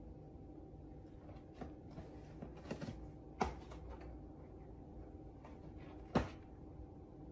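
A cat pawing and tearing at a cardboard box: a few short scratches and knocks, the sharpest about three and a half and six seconds in, over a faint steady room hum.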